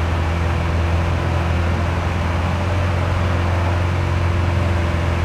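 Lamborghini Aventador SV Roadster's 6.5-litre V12 idling steadily with an even, low hum.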